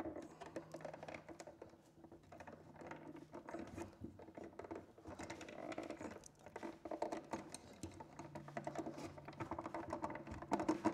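Faint irregular clicking and scraping as stiff 10-gauge solid wires and a twist-lock receptacle are pushed and shifted into a metal electrical box.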